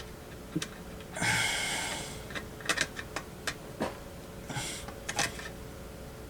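Close handling noise of a screwdriver working a wire into a power-supply terminal: scattered small clicks and taps, with two longer hissing sounds, one about a second in and one about four and a half seconds in.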